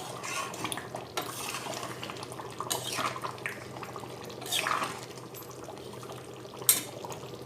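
Chicken curry bubbling in a pan on the heat, with a few clinks and knocks of a spoon against the pan. The sharpest knock comes near the end.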